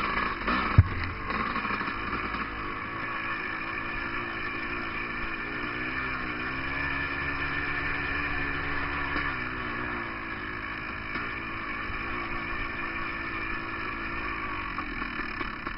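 Dirt bike engine running while riding a trail, its pitch rising and falling with the throttle. A single sharp knock comes about a second in.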